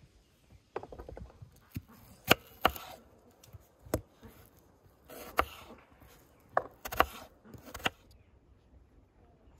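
Kitchen knife cutting a green bell pepper on a wooden cutting board: about nine sharp, irregular chopping knocks.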